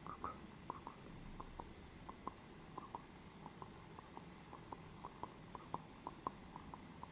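Soft, irregular clicks and taps close to the microphone, about three or four a second, over a faint room hum.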